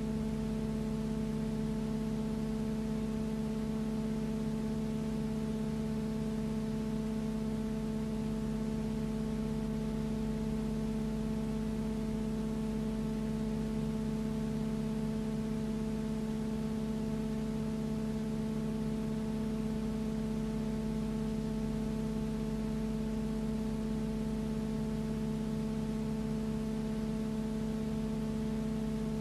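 A steady, unchanging hum made of several fixed pitches over an even hiss, with no rise, fall or pass-by.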